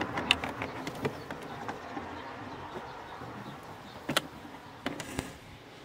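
Small plastic clicks and taps from the air filter housing cover in an Audi A8 D3's engine bay as its fastenings are worked with a screwdriver: a quick run of clicks in the first two seconds, then sharper single clicks about four and five seconds in.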